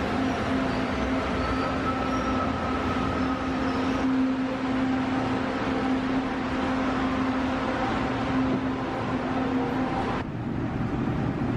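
Commuter train at a station platform, running with a steady hum over the noise of the cars. The sound changes abruptly about ten seconds in.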